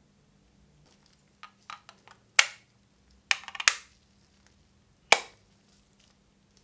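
Sharp clicks and taps from the plastic earbud case and packaging being handled. A few light taps come first, then three loud sharp clicks over the next few seconds, each with a short ring.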